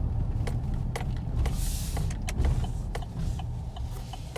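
Car driving, heard from inside the cabin: a steady low road and engine rumble with scattered small clicks and a brief hiss about two seconds in.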